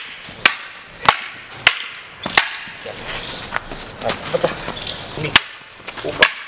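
Bamboo lathi sticks clacking hard against each other in sparring: a quick run of sharp wooden strikes about every half second, then fewer and more spread out, with two hard clacks near the end.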